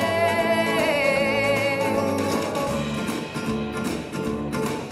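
Song music: a singer holds the last note of the chorus with a wavering vibrato for about two seconds, then a guitar-led acoustic backing plays on its own.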